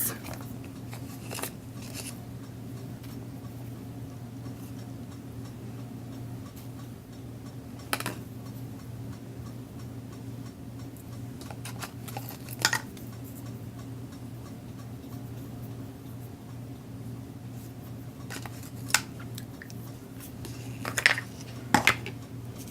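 Scattered light clicks and taps of craft supplies being handled on a desk while washi tape is applied, a few seconds apart, over a steady low electrical hum.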